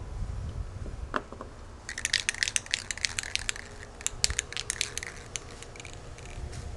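An aerosol spray-paint can being shaken, its mixing ball rattling in quick sharp clicks for about three and a half seconds, starting about two seconds in.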